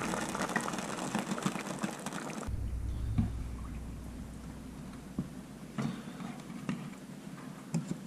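A pot of stew bubbling at a simmer for the first two seconds or so, cutting off abruptly. Then a few soft plops and splashes as peeled whole potatoes are dropped one at a time into the broth.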